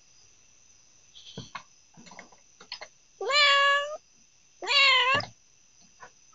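A domestic cat meows twice, two drawn-out meows about a second and a half apart, picked up by a doorbell camera's microphone with a steady hiss behind them.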